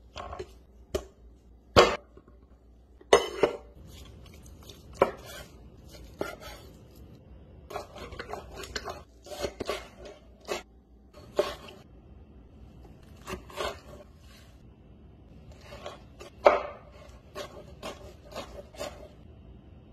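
Kitchen knife chopping vegetables on a wooden cutting board: irregular sharp knocks of the blade striking the board, singly and in short quick runs.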